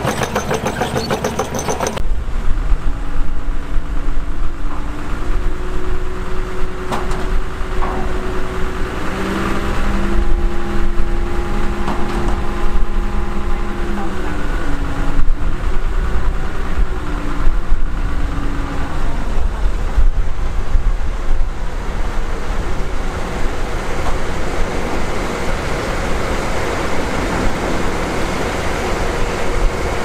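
Heavy diesel machinery engine running with a deep, steady rumble. For a stretch in the middle its pitch steps up and holds, then falls away, as it works under load.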